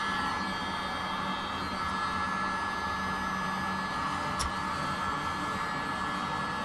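Handheld heat gun running steadily: an even fan rush with a thin steady whine, and a faint click about four and a half seconds in.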